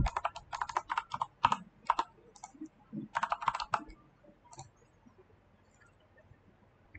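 Computer keyboard typing: a fast run of keystrokes for about two seconds, a shorter run about three seconds in, then one last click, after which the keys fall silent.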